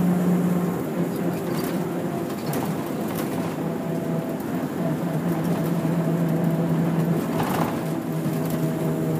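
Route bus engine running, heard from inside the cabin: a steady low hum, with a few scattered clicks and rattles.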